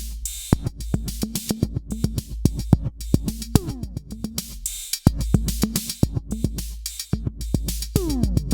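Electronic drum-machine beat with a deep sustained bass and a falling pitch sweep that comes round about every four seconds, played through an Alesis Nano compressor set to pump heavily.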